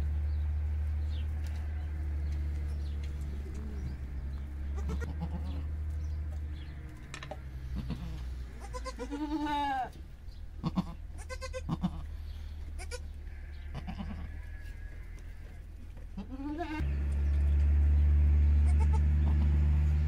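Goat bleating: a drawn-out call about halfway through, then a few short calls and one more rising call a little later. A steady low rumble runs under it at the start and returns, louder, near the end.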